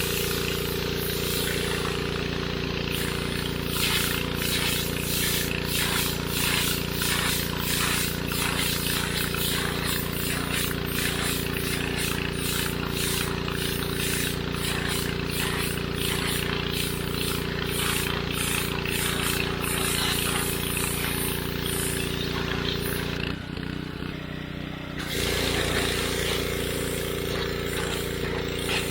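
Pressure washer running steadily at about 3,000 psi, its engine humming under the hiss of the water spray blasting mildew off a stone headstone. The sound drops away briefly about 23 seconds in, then resumes.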